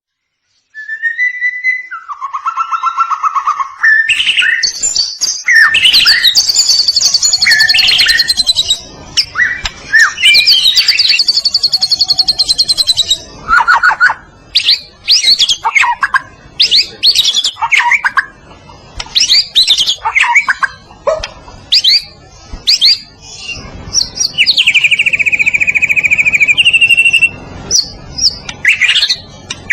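White-rumped shama (murai batu, Medan type) singing a long, varied song that starts about a second in: clear whistled notes, fast rattling trills and short sharp notes, in a near-continuous stream.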